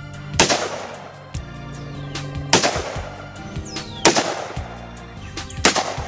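Four handgun shots, evenly spaced about a second and a half apart, each a sharp crack with a ringing tail, over background music with a steady beat.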